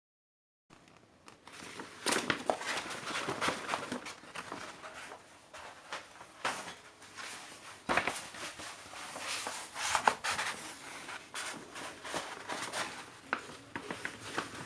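Rustling and crinkling of album packaging being handled, with irregular light clicks and a few sharper taps.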